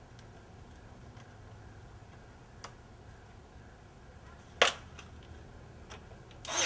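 Ryobi AirStrike cordless brad nailer firing brads into pieces of wood packed into a rotted door jamb: a sharp crack just after halfway and another at the very end, with faint clicks of handling between.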